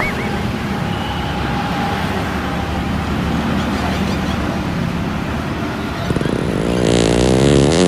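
Road traffic with motorbike engines running steadily. About six seconds in, a louder wavering sound rises for nearly two seconds and stops.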